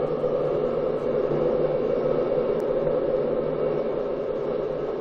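Steady engine and rolling noise heard from inside an Ilyushin Il-86 airliner during its takeoff run, its four turbofans at takeoff power.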